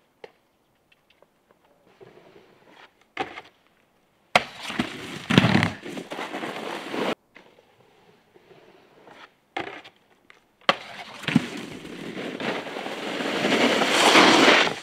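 Snowboard sliding and scraping over packed snow and a handrail in a loud stretch of about three seconds, which cuts off abruptly. Near the end a rushing noise swells and peaks, like wind and movement on a handheld microphone.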